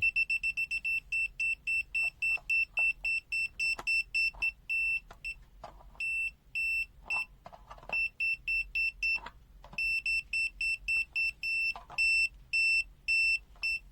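BSIDE A1 multimeter's non-contact voltage beeper beeping rapidly, about three to four short high-pitched beeps a second, pausing briefly a few times: the alert that it is sensing live mains AC voltage close by.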